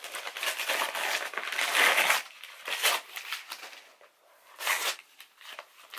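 Gift-wrapping paper being torn and crumpled as a present is unwrapped by hand. The rustling is loudest and densest in the first two seconds, then comes in a few shorter crackles.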